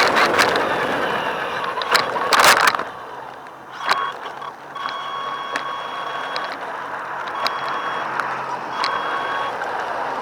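Small electric RC car running over rough ground: a steady rolling noise with a few sharp knocks in the first four seconds, then a steady high motor whine that cuts in and out several times as the throttle is worked.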